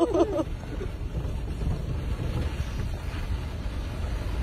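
Car driving slowly along a snowy street, heard from on board: a steady low rumble of engine and tyres, with wind buffeting the microphone.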